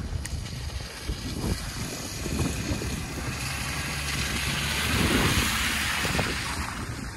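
Nissan X-Trail diesel SUV approaching up a wet, muddy dirt track and passing close by, its engine and tyres on the mud growing louder to a peak about five seconds in, then fading. Wind rumbles on the microphone throughout.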